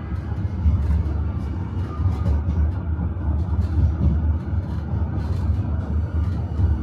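Tram running along its rails, heard from inside the car: a steady low rumble of wheels and motors, with many light clicks and rattles scattered through it.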